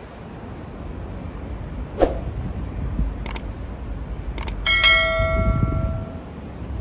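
A bell struck once, ringing clearly for about a second before fading, over a steady background of street noise, with a few sharp clicks in the seconds before it.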